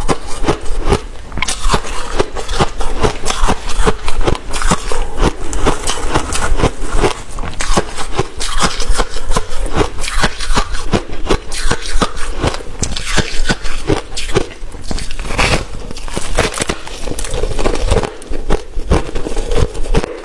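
Freezer frost being bitten and chewed, a dense, unbroken run of crisp crunches and crackles.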